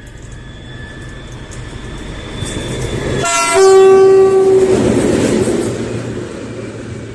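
A train passing close by at speed, its noise building to a peak about halfway through and then fading. As it goes by, the horn sounds briefly, its pitch dropping sharply.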